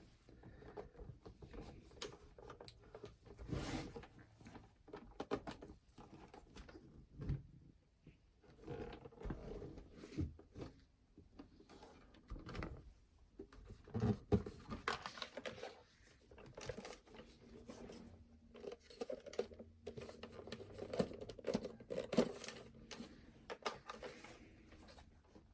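Scattered small clicks, taps and scrapes of a plastic clock-radio/cassette player being handled and unscrewed while it is taken apart.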